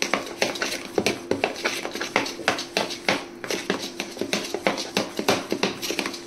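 A spoon briskly stirring besan (gram-flour) batter with freshly added Eno in a bowl, clinking against the bowl several times a second. The batter is being mixed until no grain of Eno is left and it starts to froth and rise.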